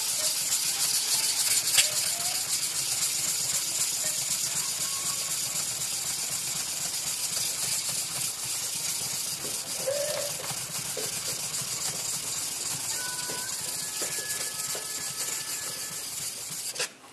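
Shapton Glass #500 whetstone being lapped back and forth on a coarser #220 stone: a steady wet hiss of stone grinding on stone, wearing the surface down until the pencil lines are gone and the face is flat. It stops abruptly just before the end.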